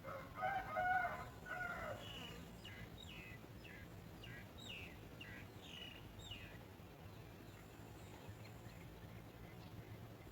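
Bird calls: a loud pitched call with a few breaks in the first two seconds, then a run of about ten short, downward-sliding notes over the next five seconds.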